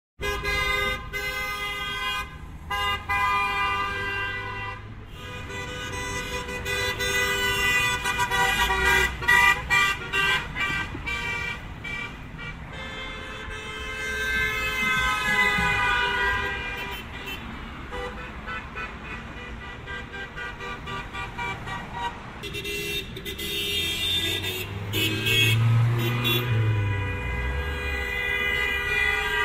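Car horns honking again and again: long held blasts mixed with runs of short quick beeps, with a low rumble underneath.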